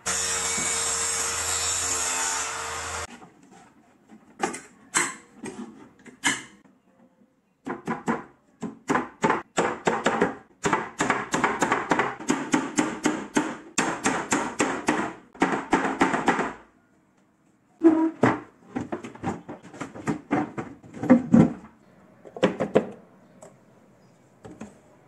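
Claw hammer striking along the back panel of a wooden cabinet: a few spaced blows, then a long run of quick blows at about three to four a second, then a few more spaced ones. A steady noise fills the first three seconds.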